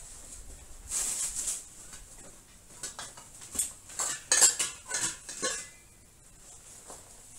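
Metallic clinking and rattling of hard objects being handled: a short cluster of sharp knocks about a second in, then a denser run of clinks from about three and a half to five and a half seconds in.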